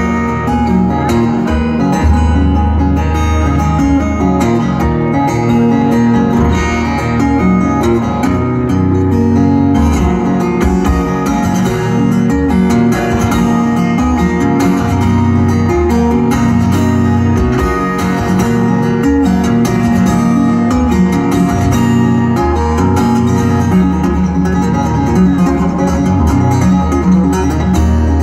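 Solo fingerstyle acoustic guitar playing an instrumental piece, with deep bass notes under the melody.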